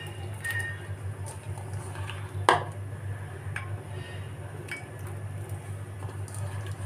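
Handfuls of chopped raw mango dropped into a pan of water, with soft plops and splashes and a few sharp clicks and knocks; the loudest knock comes about two and a half seconds in. A steady low hum runs underneath.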